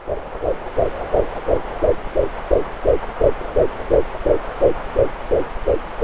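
Fetal heartbeat picked up by a fetal Doppler monitor: a fast, even run of whooshing pulses, about three beats a second, over a steady hiss.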